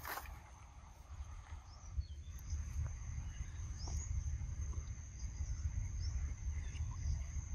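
Insects keep up a steady, high-pitched drone, with a few short, falling bird chirps over it and a low rumble underneath.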